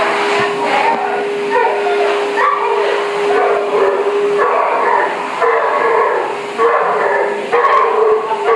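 Basset hound whimpering and yipping again and again in short cries, unhappy at bath time, over the steady hiss and whine of a dog blow dryer.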